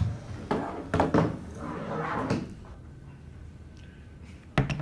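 Cameras and a tripod being set down and handled on a wooden table: a series of knocks and clatters, with two sharp knocks near the end.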